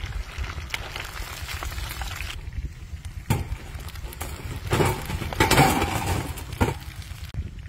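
Hot oil sizzling and crackling around a whole chicken deep-frying, dying away about two and a half seconds in as the chicken is lifted out with a wire mesh strainer. This is followed by a click and a run of knocks and scraping as the metal strainer is worked against a steel tray.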